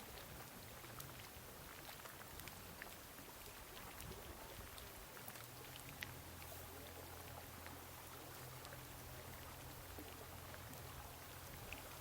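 Floating glacier ice fizzing and popping as ancient air bubbles trapped in it burst free while the ice melts: a faint hiss full of scattered small sharp pops and ticks, like carbonated water. A low steady hum comes in partway through.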